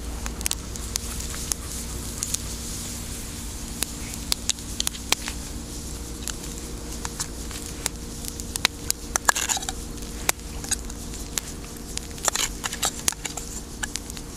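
Small wood campfire crackling, with sharp pops at irregular times throughout. Two short scraping rushes near the middle and near the end come as chunks of canned chicken are spooned from the tin into the canteen cup.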